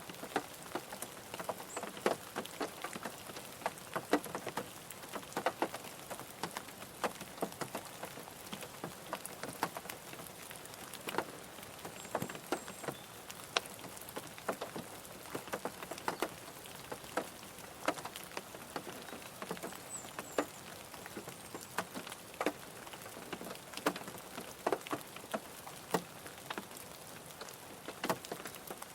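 Rain falling on a car's roof and windows, heard from inside the car: a steady hiss with frequent irregular sharp taps of individual drops.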